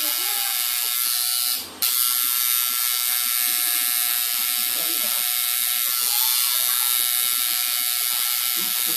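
Coil tattoo machine buzzing steadily while inking skin, with a short break about one and a half seconds in before it starts again.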